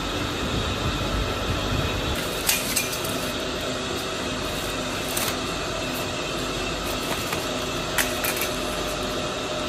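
Steady hum and hiss of factory machinery, with a few sharp metallic clicks or knocks, one near the start, one in the middle and one near the end.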